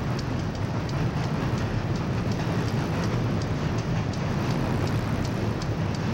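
CSX diesel freight train on a steel girder bridge: a steady low rumble under an even rushing noise, with a faint regular ticking about three times a second.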